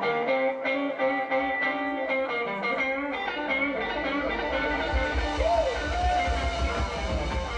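Live rockabilly band playing: an electric guitar picks a riff, and the bass and drums come in strongly about halfway through.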